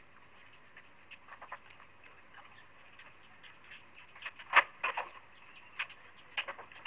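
Scattered clicks and knocks of a plastic strainer and a pan as hot oil with fried pomegranate pieces is tipped from the pan into the strainer. The loudest knock comes about four and a half seconds in.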